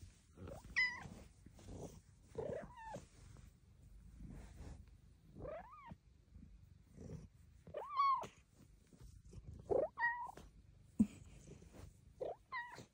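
Silver Bengal cat chirping and giving tiny meows: about seven short, high calls that rise and fall in pitch, spaced a second or two apart.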